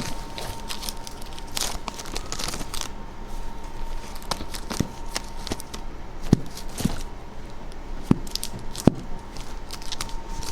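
LP record jackets being flipped through in a store bin: irregular crinkling rustles and light clicks and knocks as the sleeves brush and tap against each other.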